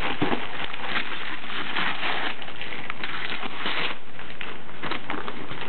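Wrapping paper being torn and crumpled off a gift box: continuous crackling and rustling of paper.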